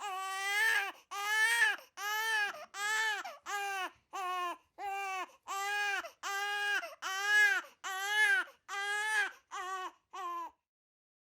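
Infant crying: a steady run of about a dozen short, evenly spaced wails, the last few shorter, stopping near the end.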